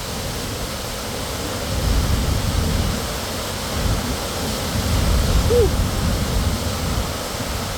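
Steady, heavy rush of Sahalie Falls, a 100-foot waterfall, heard up close in its spray, with a deep low rumble that swells and eases.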